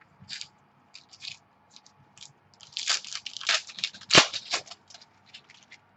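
Crinkling and crackling of packaging as trading cards are handled: a string of short crackles, sparse at first and thickest in the middle, with the loudest about four seconds in.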